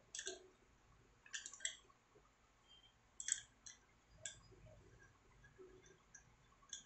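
Light, sharp metallic clicks and clinks, irregularly spaced, from a small flat wrench working the threaded nozzle of a Stanley hand riveter while a nozzle is being changed.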